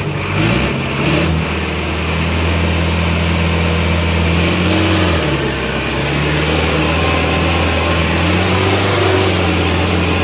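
Sonalika 750 tractor's diesel engine, fitted with an oversized 61-number turbo, running hard and loud, with a thin high turbo whistle that climbs in pitch in the first second and again about four seconds in. The engine note sags briefly about five seconds in, then picks back up.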